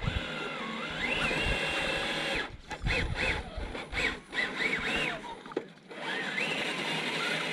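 Electric motor and gearbox of a 1/10-scale RC crawler whining under throttle while the truck is stuck. The pitch climbs and holds for about a second and a half, then rises and falls in several short bursts.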